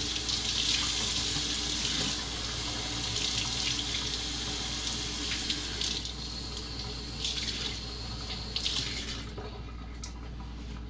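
Kitchen faucet running into a sink, its stream splashing over a sheet of rice paper held underneath to wet it. The water shuts off about nine seconds in, leaving a few small taps and drips.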